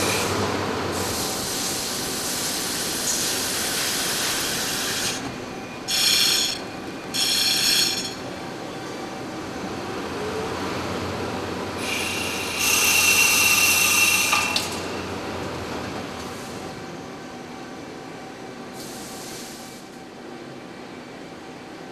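CNC lathe turning a large disc-shaped workpiece: steady machine running and cutting noise, with two short high-pitched squeals about six and seven and a half seconds in. About twelve seconds in comes a louder stretch of cutting with a steady whine lasting a couple of seconds, after which the noise eases off.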